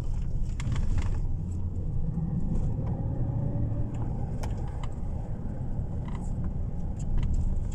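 Car driving along a road, heard from inside the cabin: steady low engine and tyre rumble, with the engine note rising slightly about three seconds in.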